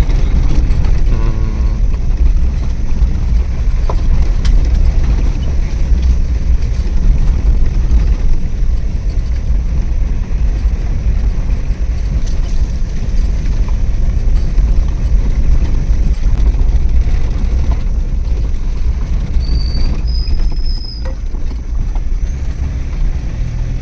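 Steady low engine and road rumble heard from inside a moving vehicle, with a few faint clicks and a brief high tone near the end.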